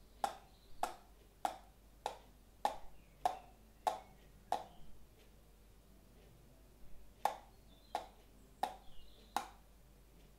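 Knocks on a small box held in the hands, short and sharp, evenly spaced a little under twice a second; they pause for about two seconds midway, then resume.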